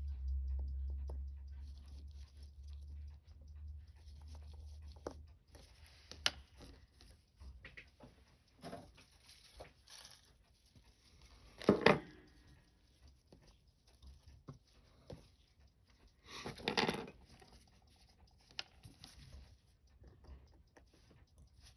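Scattered small clicks, taps and scrapes of watchmaker's tools and handling on a vintage Seiko 6139 chronograph being worked on, with two louder handling noises about halfway through and again a few seconds later.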